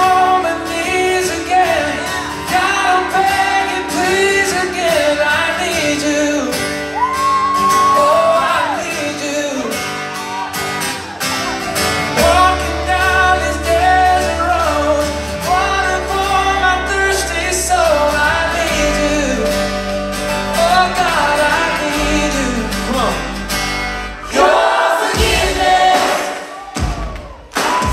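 Live band playing amplified in a large hall: singing over electric guitars and drums, with a deep bass note coming in about twelve seconds in and a short break just before the end.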